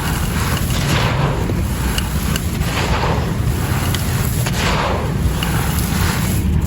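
Dry white clay pot pieces being crushed and crumbled, a grainy crunch about once a second over a steady low rumble.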